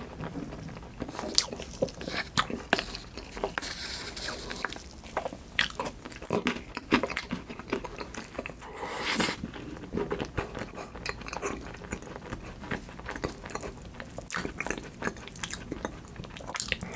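Close-miked eating: a person biting and chewing food, with irregular crunches and wet clicks, and a longer noisy crunch about nine seconds in.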